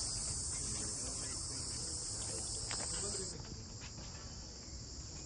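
Crickets chirping in a steady, high-pitched chorus, which drops a little about three seconds in.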